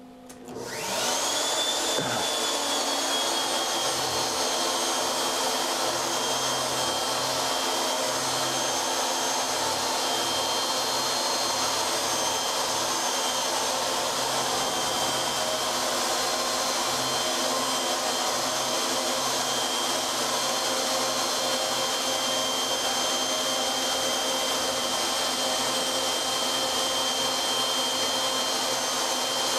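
CNC router spindle spinning up with a rising whine that levels off within the first couple of seconds, then running steadily at speed while the end mill cuts a pocket into the block.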